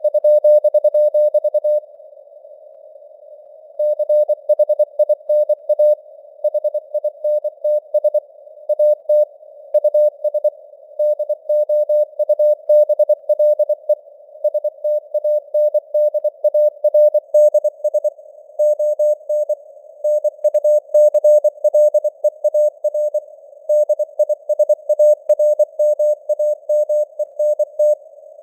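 Morse code (CW) sent at 24 words per minute: a single steady tone keyed on and off in rapid dots and dashes, over a narrow band of hiss from simulated radio noise. The keying pauses for about two seconds near the start.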